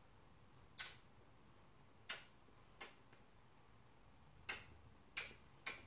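Six light, sharp clicks at uneven intervals as small Meccano construction pieces are handled and fitted together.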